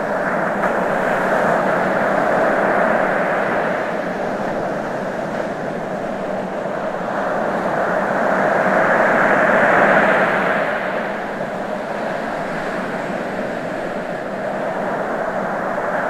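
Ocean waves washing ashore in a steady rush of surf that swells and ebbs slowly, with the loudest swell about ten seconds in.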